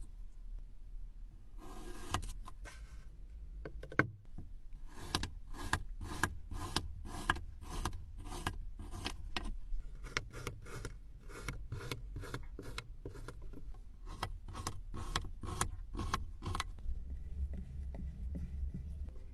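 Kinetic sand being cut or pressed in a run of short, crisp strokes, roughly two a second, starting about two seconds in and stopping a few seconds before the end.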